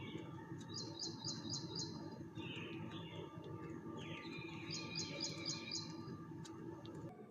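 Small birds singing and chirping: two phrases of five quick repeated high notes, with other chirps between them, over a steady low hum.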